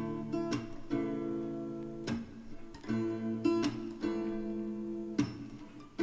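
Background music: a guitar strumming chords, without singing.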